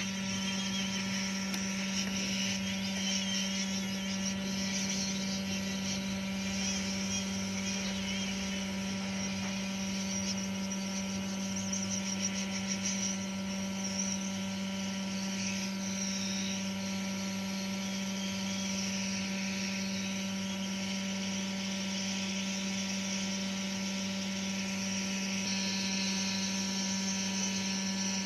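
Hot-air heat gun blowing steadily onto a phone's charging port, heating the solder so the port can be lifted off the board. A steady electrical hum sits underneath, and the airflow cuts off near the end.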